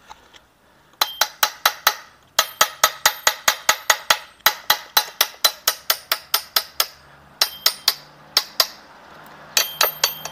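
Quick metal-on-metal taps with a bell-like ring, about five a second in runs of several with short pauses, as a steel rod is struck against parts in an open Yamaha Crypton crankcase while the balancer shaft is being fitted.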